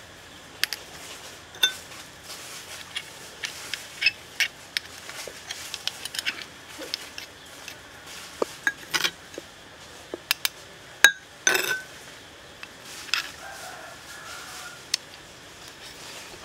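Metal spoon clinking and scraping against grilled shellfish shells as the meat is scooped out, with shells knocking together: a string of sharp, irregular clicks, the loudest about two-thirds of the way in.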